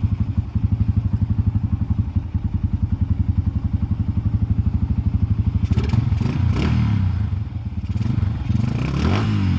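1990 Yamaha XT 350's single-cylinder four-stroke engine idling with a steady, rapid beat on its newly fitted carburetor. From about six seconds in, the throttle is opened a few times and the revs rise and fall.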